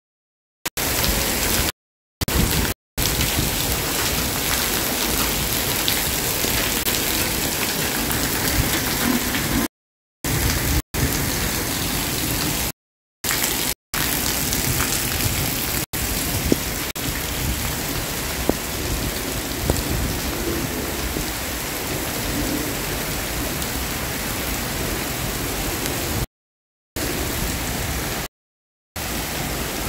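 Monsoon rain pouring steadily, a dense, even hiss. The sound cuts out completely for a moment several times, dropouts in the live stream's audio.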